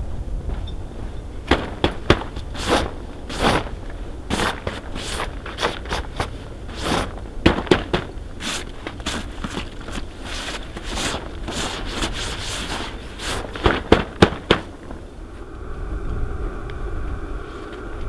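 Irregular sharp crackling and crunching from footsteps in packed snow and hands working the stiff, frozen fabric walls of a rooftop-tent annex, some cracks in quick clusters. The cracks stop near the end and a steady low hum takes over.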